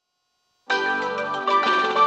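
Electronic keyboard-like chime melody starting abruptly after a moment of silence, about two thirds of a second in: the station platform's train-approach melody that comes before the arrival announcement.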